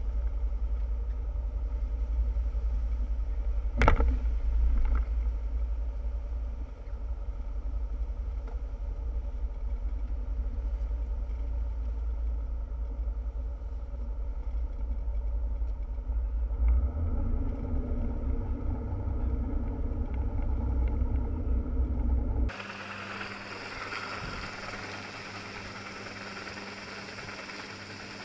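Boat engine running steadily at low speed, with one sharp knock about four seconds in. Near the end the engine drone cuts off suddenly and gives way to a quieter, steady hiss of wind and rushing water.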